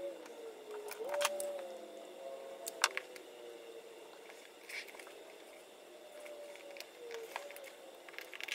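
Scattered light clicks and taps of plastic nail-tip swatches being handled and pulled from a swatch book, the sharpest about a second in and near three seconds, over a faint wavering tone.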